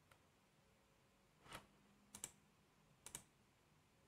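A few faint computer-mouse clicks in a quiet room: a single click about a second and a half in, then two quick double clicks.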